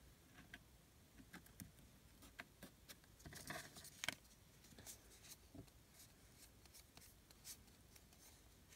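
Faint rustling and light tapping of paper tags being handled on a cutting mat, with a slightly louder cluster of rustles and clicks about three and a half seconds in.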